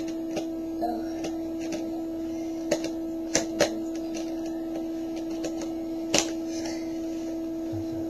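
Parts of a snap-together electronics kit being pressed onto its plastic base grid: several short plastic clicks and snaps, the loudest about six seconds in. Under them runs a steady low hum.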